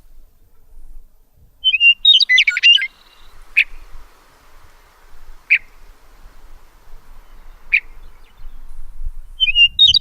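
Bird chirping: a quick run of chirps about two seconds in, then three single sharp chirps about two seconds apart, and another quick run starting near the end.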